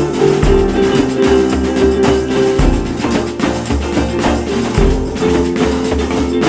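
Background music: a plucked-guitar track with percussion and a steady beat.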